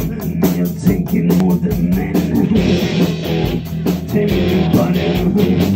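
Live rock band playing: a drum kit keeping a steady beat under guitars.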